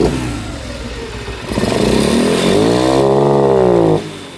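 Shineray 50cc motorcycle engine breathing through a homemade oil-can intake on the carburettor, revved once: the note climbs and falls over about two seconds, then cuts off sharply near the end. It is running rough and misfiring, which the owner puts down to the makeshift intake giving too much mixture.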